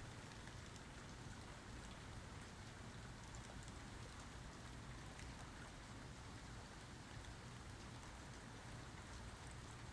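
Faint, steady rain falling, with scattered soft ticks of individual drops; no thunder.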